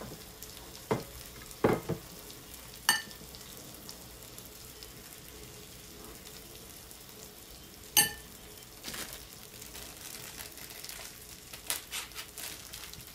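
Chicken breasts sizzling steadily on a stovetop griddle, with a few sharp knocks and two ringing clinks, about three seconds and eight seconds in, the second the loudest.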